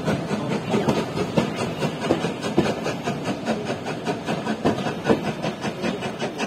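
Passenger carriages of a steam-hauled heritage train rolling along the track, their wheels clattering over the rail joints in a quick, uneven run of clicks and knocks.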